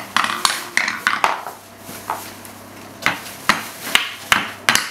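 Small wooden mallet knocking on the wooden balls of a Melissa & Doug Pound and Roll Tower, with the balls clacking down its wooden ramps: about eight sharp, uneven knocks, quicker near the end.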